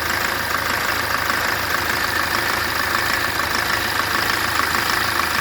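Toyota Avensis 2.0 D4-D four-cylinder turbodiesel idling steadily with a rapid clatter, the abnormal engine noise that goes with its blown head gasket.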